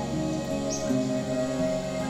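Soft background music of sustained, layered tones changing in slow steps.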